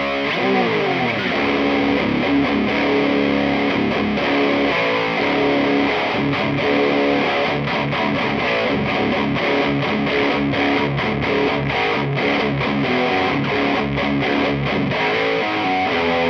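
Distorted electric guitar riffing through a Peavey Bandit 112 combo amp fitted with an Eminence Swamp Thang speaker. It opens with a downward slide in the first second, then continues as chugging, steady riffs.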